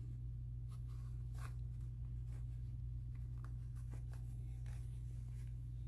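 Faint rustling and a few light clicks of a quilted fabric koozie and its batting being pulled through the turning opening with hemostats, over a steady low hum.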